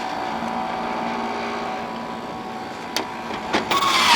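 A General Electric ADEL50LRL2 dehumidifier, opened up, running with a steady hum. Near the end comes a sharp click, then a loud, brief scraping clatter.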